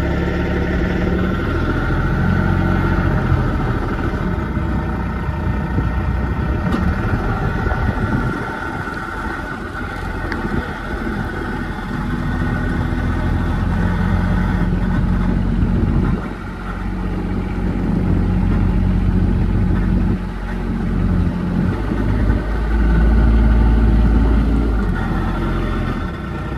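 A motor vehicle's engine running steadily, its pitch shifting up and down every few seconds as it speeds up and slows down, and loudest near the end.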